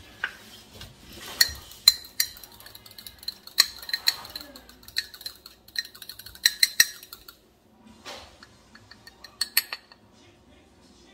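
Metal fork beating an egg in a small ceramic bowl: quick, ringing clinks of the fork against the bowl's sides. The clinking is dense for most of the time, stops briefly about seven seconds in, then comes back in a few scattered strokes.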